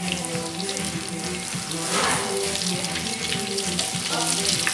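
Potato chunks deep-frying in a pan of hot oil: a steady, dense bubbling hiss.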